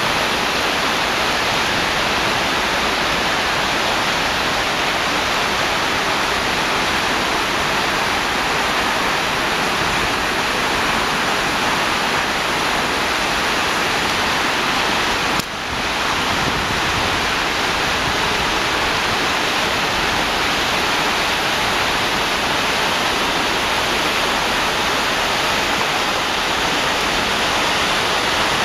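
Flash flood in a normally dry desert arroyo: fast, muddy floodwater roaring steadily down the channel. The roar dips briefly about halfway through.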